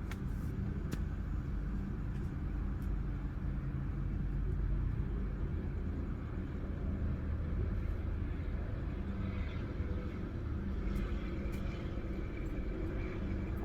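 Steady low rumble of vehicle traffic, with no voices.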